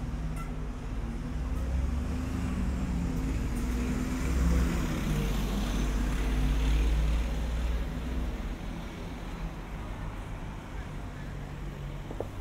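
City bus driving past close by, its engine rumble loudest in the middle and dying down after about eight seconds, over background street traffic.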